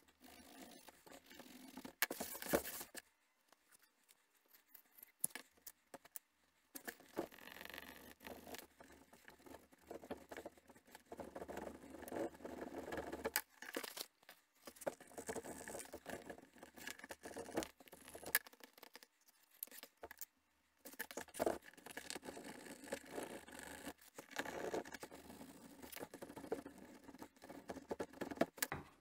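A wooden edge burnisher rubbed briskly back and forth along the edge of a dyed leather cuff, burnishing it smooth: a dry, scratchy rubbing that comes in spells with short breaks.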